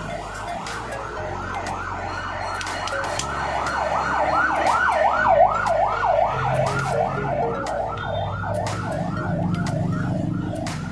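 Emergency-vehicle siren in a fast yelp, rising and falling about three to four times a second, growing louder toward the middle and then fading as it passes.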